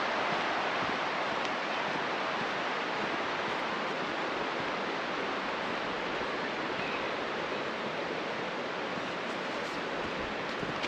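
Steady rushing of a river's flowing current, an even hiss with no let-up.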